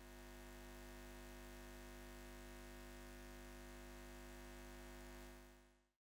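Faint steady low hum made of several evenly spaced tones. It fades in at the start and fades out about five seconds in.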